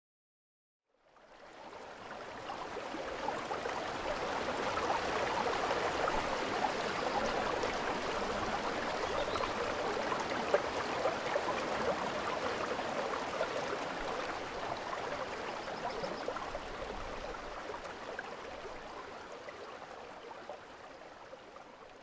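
The Rhine flowing past the ferry: a steady rushing wash of river water. It fades in after about a second, with one brief click about halfway, and slowly fades down toward the end.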